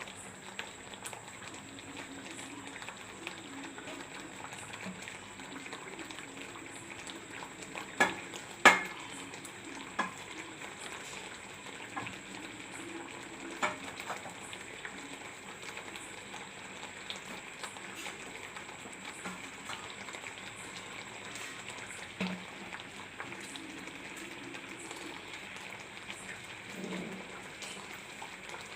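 Ginger and sugar syrup bubbling steadily in a pan as it is stirred and cooked down for ginger candy. A few sharp clicks of the stirring spoon against the pan stand out, the loudest about eight or nine seconds in.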